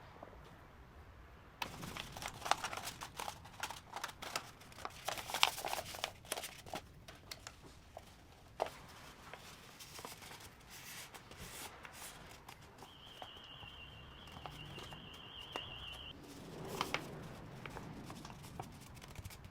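Paper being handled and folded by hand: rustling and crinkling with many small clicks and taps, busiest in the first half. A steady high tone sounds for about three seconds in the second half, followed by a short flurry of rustling.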